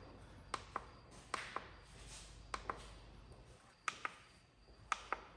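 Faint paired clicks, five of them roughly a second apart: the Polaris Sportsman's handlebar mode and up buttons being pressed and released while stepping through the display menu to reset the oil service reminder.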